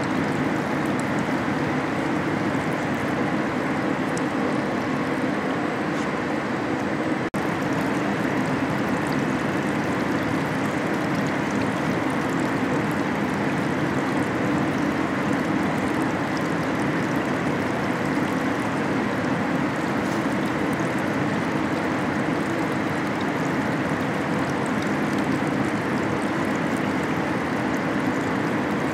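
Steady rushing and trickling of flowing liquid with a low machine hum, from a car-body dip-treatment tank in an automated paint shop. It breaks off for an instant about seven seconds in.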